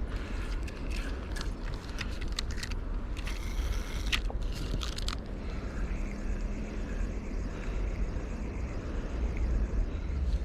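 A series of sharp clicks and scrapes, with a short rustling burst a few seconds in, over a steady low rumble. The clicks thin out after about five seconds.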